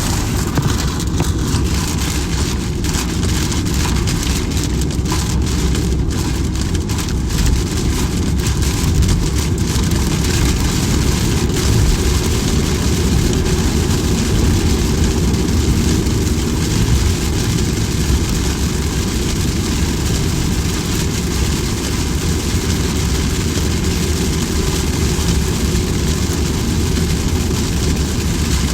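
Steady rain falling without a break, with a continuous low rumble underneath.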